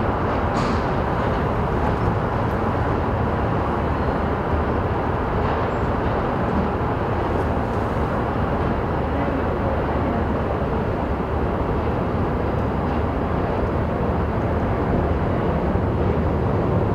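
DD51 diesel-hydraulic locomotive hauling a freight train: a steady engine and rolling noise with strong low end, growing a little louder near the end.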